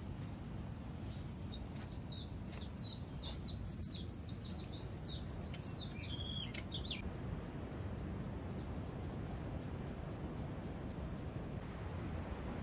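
A songbird singing a rapid run of high, falling notes for about six seconds, then a fainter series of repeated notes, over a steady low background rumble.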